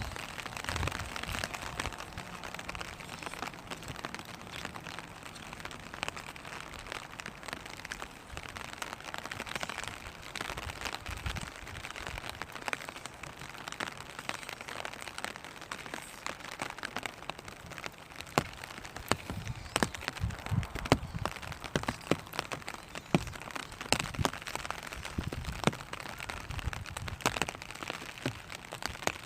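Rain falling on a vinyl umbrella: a steady patter of small drops, with scattered louder single taps on the plastic that come more often in the second half.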